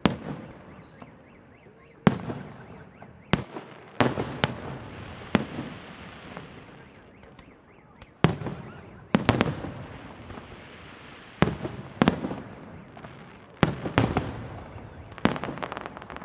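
Fireworks display: aerial shells bursting overhead in about fifteen sharp bangs at irregular intervals, some in quick pairs. Each bang is followed by a fading echo.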